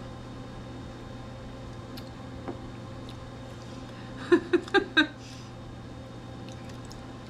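Steady low room hum with a faint knock about two and a half seconds in; about four seconds in, a woman makes a short vocal sound of four quick pulses.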